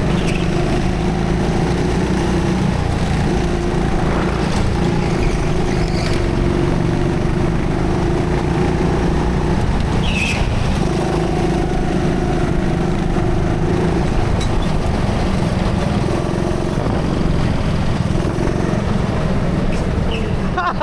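Go-kart driving at speed, heard from onboard: a steady, loud engine drone over a heavy low rumble, its pitch holding through stretches and dipping briefly between them.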